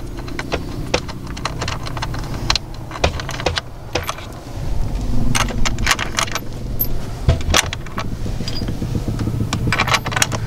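Metal 1/0 cable lugs clinking and rattling against the terminal studs of a lithium battery as they are set in place: a string of small, irregular metallic clicks, with a steady low rumble underneath.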